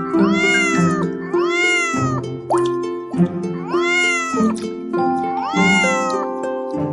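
Domestic cat meowing four times, each call rising then falling in pitch, over light background music.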